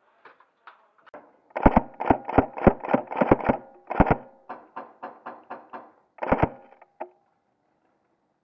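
Airsoft rifle firing: about a dozen sharp, loud shots in quick runs of two to five, with fainter clicks of other shots between them.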